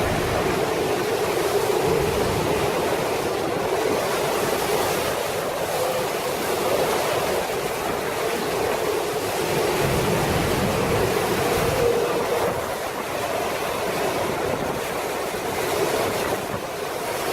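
Steady rush of strong hurricane wind, unbroken and without distinct gusts or impacts.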